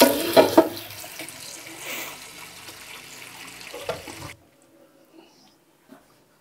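Tap water pouring into a large stainless steel stockpot of dry onion skins, with a couple of sharp knocks in the first second and another just before the flow stops. The rush grows quieter as the pot fills, and the tap is shut off suddenly about four seconds in.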